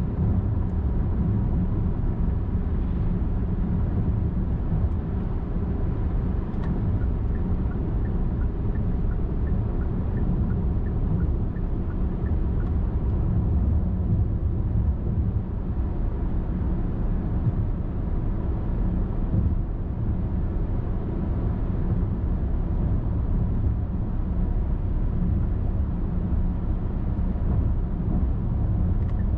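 Car driving steadily at highway speed, a constant deep rumble of tyres and engine with no change in pace.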